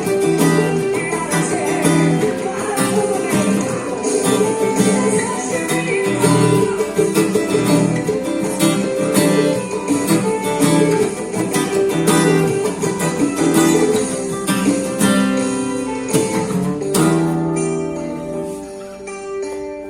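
Takamine acoustic guitar played with quick picked notes and strums. Near the end a final chord is left ringing and slowly fades.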